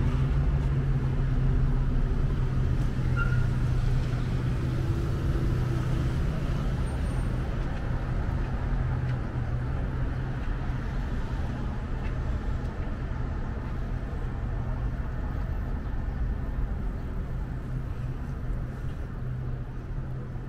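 City street traffic with a steady low engine hum, easing off slightly in the second half.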